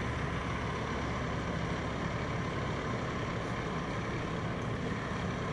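Heavy truck's diesel engine running steadily at low speed, a continuous low rumble.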